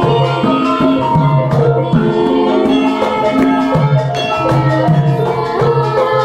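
Javanese gamelan ensemble playing: bronze kettle gongs and metallophones ringing in many overlapping struck notes, kept in a steady pulse.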